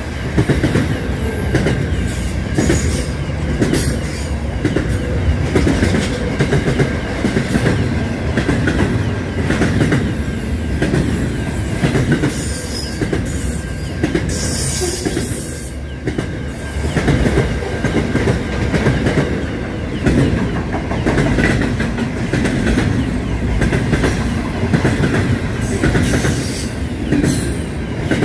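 Container freight train wagons rolling past: a steady rumble with the clatter of wheels over rail joints, and a thin high wheel squeal running through it.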